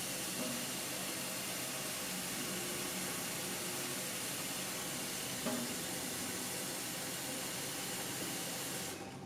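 Kitchen faucet running in a steady hiss as a pot fills with water, with a small knock about halfway through; the water shuts off near the end.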